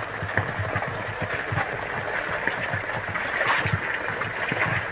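Heavy rain falling on a tent's fabric: a dense, steady patter of many separate drop hits.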